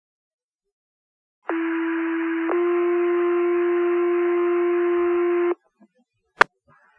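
Two-tone sequential fire-department pager tones heard over a radio scanner: a steady tone about a second long steps straight into a second, longer tone held about three seconds, then cuts off. This is the alert tone that sets off the firefighters' pagers, followed a second later by a single short click.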